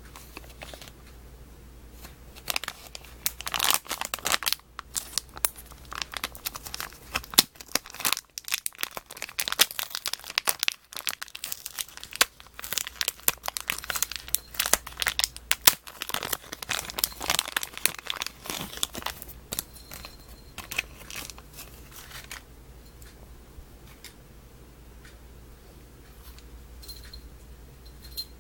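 Packaging being crinkled and torn open: a dense run of crackling and rustling that dies down about two-thirds of the way through.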